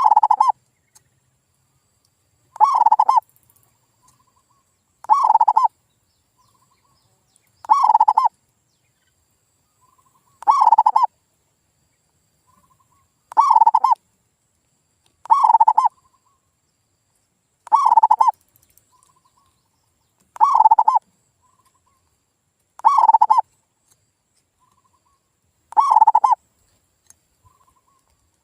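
Male zebra dove (perkutut) cooing its song phrase over and over, about every two and a half seconds, each phrase loud and alike. It is a lure call meant to set other perkutut singing.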